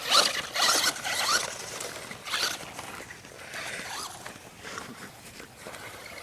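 Radio-controlled car's electric motor whining in short revving bursts, its pitch rising and falling, loudest over the first two seconds or so and fainter after.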